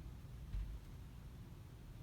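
Casablanca Spirit of Saturn ceiling fan running with a faint, steady low rumble from its bad bearings. A short low thump comes about half a second in.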